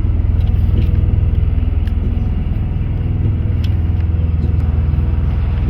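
A loud, steady low hum of running machinery, with a rapid fine pulse and a few faint clicks.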